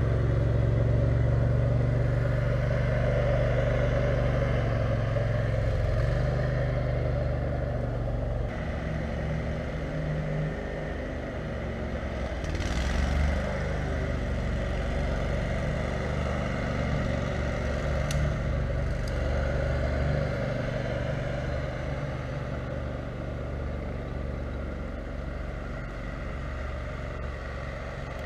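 Kohler 18 HP Command engine of a lifted offroad lawn mower running steadily. Its note changes about eight seconds in and wavers after that, as the throttle or load varies.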